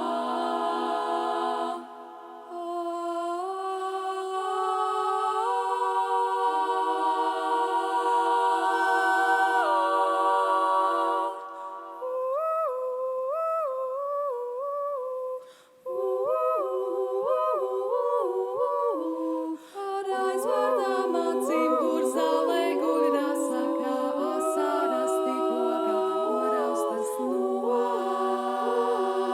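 A cappella vocal group singing wordless harmony: long held humming chords at first, then from about twelve seconds in, short repeated syllables in a bouncing rhythm over sustained lower voices.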